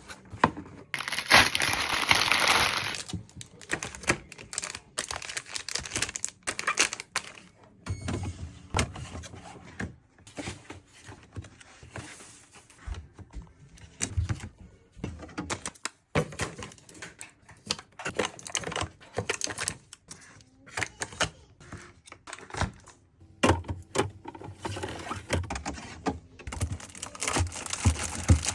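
Groceries being unpacked and put away: plastic packaging rustling and crinkling, with many small clicks and knocks of items and containers being set down. A loud rustle of plastic comes about a second in.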